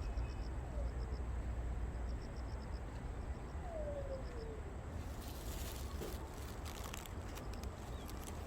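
Outdoor ambience under a steady low rumble. Runs of faint, quick, high chirps, like an insect or small bird, come in the first half, along with two falling whistled calls. From about five seconds in there is a crackling rustle.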